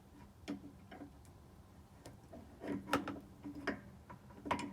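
Small metal water-heater parts, the spark igniter and pilot assembly, clicking and tapping as they are handled and worked loose: about half a dozen sharp irregular clicks, the loudest about three seconds in.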